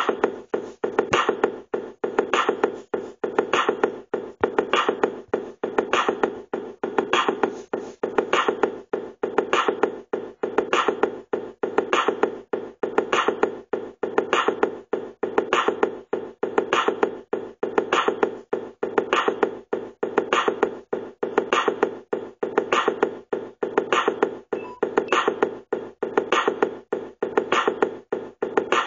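Instrumental beat: a steady repeating drum pattern of sharp hits over a sustained mid-range tone, with the pattern repeating about every 1.2 seconds.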